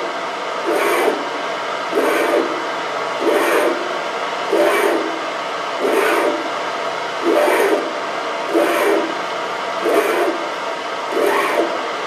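Lathe tool scraping a cut in a brass workpiece as the chuck is turned round by hand, a short rasp about every 1.3 seconds, nine strokes in all.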